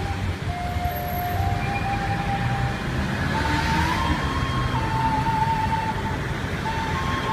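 A slow melody of long held single notes, stepping up and down, played by a street musician over the steady rumble of road traffic; a vehicle swells past about halfway through.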